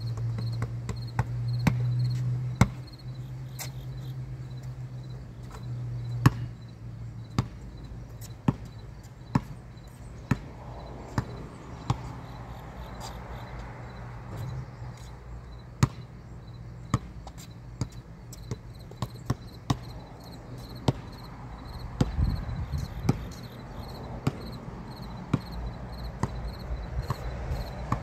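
A basketball bouncing on a concrete court: sharp single bounces, often about one a second, from a player dribbling and shooting. A low steady hum sits under the first few seconds.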